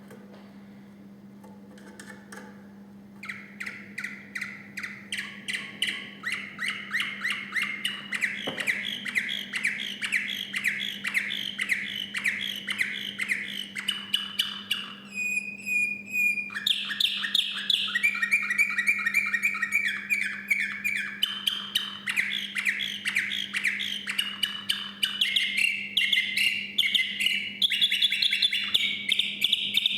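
Male song canary singing: long rolls of rapidly repeated notes that start about three seconds in, broken near the middle by a brief clear held note. A steady low hum runs underneath.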